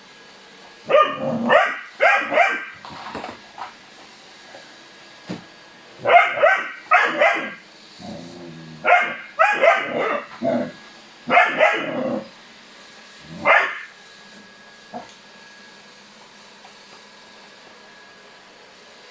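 A dog barking at a vacuum cleaner: short sharp barks in clusters of two to four, with pauses between, and a last single bark about fourteen seconds in.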